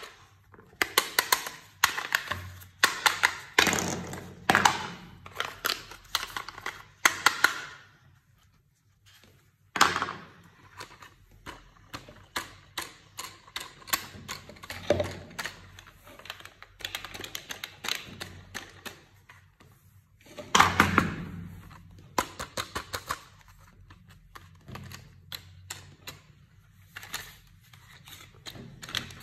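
Hard plastic sand-toy pieces clicking and clattering as they are handled and fitted together, in quick runs of clicks with a short pause about a third of the way through.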